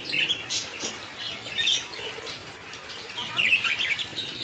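Parrot calling: a run of short, chirping calls, thickest about one and a half and three and a half seconds in, over a steady hiss.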